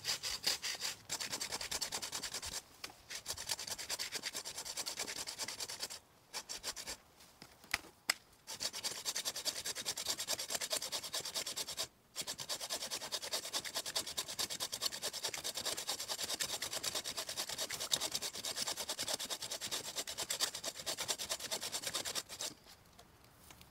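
Hand pruning saw cutting through a thick tree branch with fast back-and-forth strokes. It pauses briefly a few times and stops shortly before the end.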